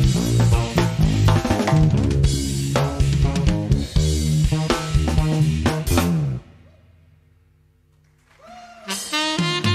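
Live jazz drum kit and electric bass playing a busy groove, with snare, bass drum and cymbal hits. The band stops together about six seconds in, leaving a short quiet break with a low note fading, and comes back in near the end.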